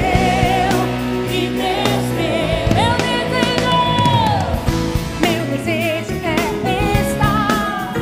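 Live Brazilian gospel worship song: a female lead voice sings with vibrato over a band with drums and sustained low notes, holding one long note about three seconds in.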